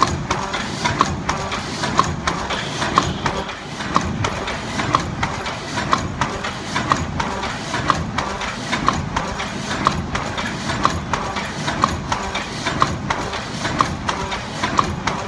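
ZBJ-NZZ middle-speed paper cup forming machine running in production: a steady mechanical clatter with a sharp metallic clack about once a second.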